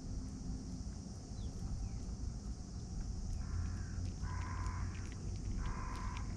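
A stray cat crunching dry kibble close to the microphone, with fine clicks from about three seconds in. Three short calls sound over it in the second half, the loudest thing heard.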